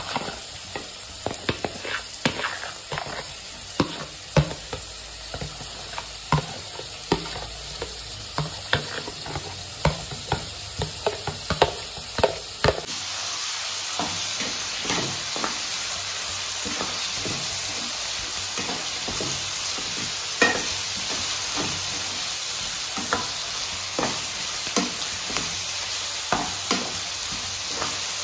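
Onions, tomatoes and green chillies sizzling in oil in a black pan while a metal spatula stirs them, with frequent sharp clicks and scrapes of the spatula against the pan. About halfway through, the sizzle becomes louder and steadier.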